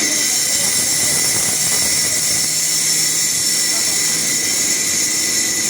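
Sawmill machinery running steadily, a constant high whine over a hiss that does not change.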